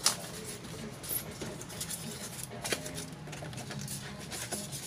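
Bench handling noises from a flat-screen TV and styrofoam blocks being set down: one sharp knock at the start, then a few faint clicks and taps.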